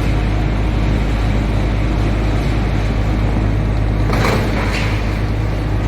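SHD2113 industrial wood chipper running with a steady, loud low drone, with a brief louder, noisier rush a little after four seconds in.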